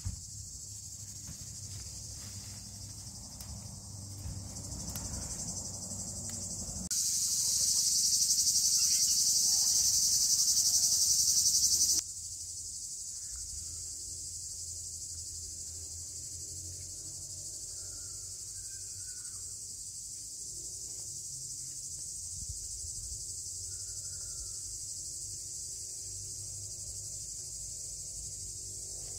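Insects chirring in a steady, high-pitched chorus. It suddenly gets much louder for about five seconds, from roughly seven seconds in, then drops back just as suddenly. A faint low rumble sits underneath.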